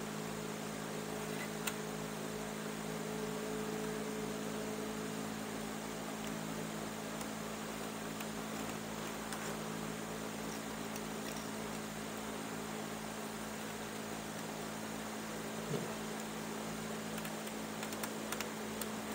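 Steady low electrical hum with an even hiss; a higher tone within it fades out about five seconds in. A few faint light ticks come near the start and near the end, as hands work the woven cane.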